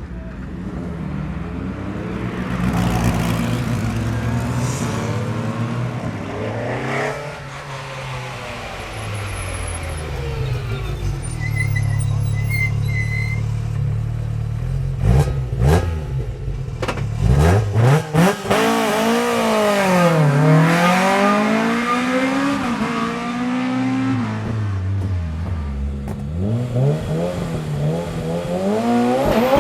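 Hillclimb race car engines at hard throttle, the pitch climbing and dropping again and again through gear changes as cars pass, with a run of sharp cracks about halfway through.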